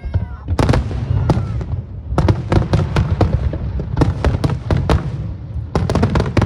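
Aerial fireworks shells bursting in quick volleys of sharp cracks over a continuous low rumble, in four clusters a second or so apart.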